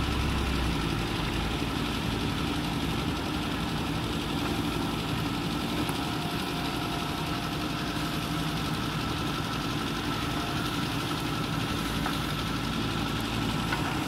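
JCB 3DX backhoe loader's diesel engine running steadily while the backhoe arm works, with a thin steady whine over the engine.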